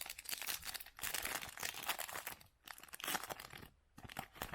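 Foil trading-card pack wrapper crinkling and tearing as it is handled and ripped open, in dense crackling runs with a short pause partway, and a few sharp clicks near the end.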